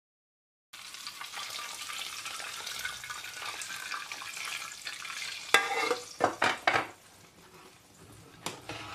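Hot melted fat sizzling as it is poured into a pot of lentil soup, starting about a second in. About halfway through come several sharp knocks of a utensil against the pot as the soup is stirred.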